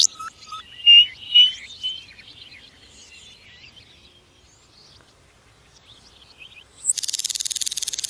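Common nightingale singing. Two loud sliding whistled notes come about a second in, then a quieter run of varied warbled notes. A fast, dense rattling trill starts about a second before the end.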